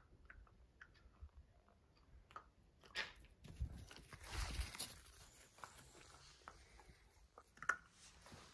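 Jack Russell terrier nosing through grass: faint crunching and rustling with scattered small clicks, and a louder rustle a few seconds in.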